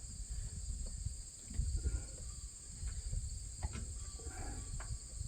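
Crickets trilling steadily, with a few sharp metal clinks and knocks from hand-tool work on farm machinery and a low rumble.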